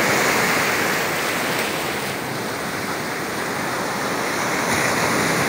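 Surf breaking and washing up the beach: a steady rush of waves and foam that eases a little in the middle and builds again toward the end.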